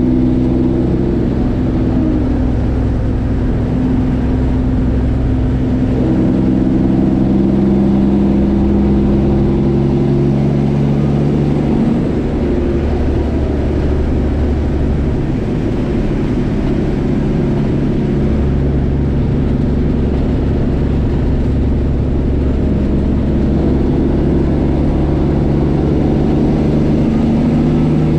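Straight-piped Detroit Diesel Series 60 inline-six diesel in a Kenworth truck, heard from inside the cab as it drives. Its drone climbs in pitch and drops back several times as the truck works through the gears.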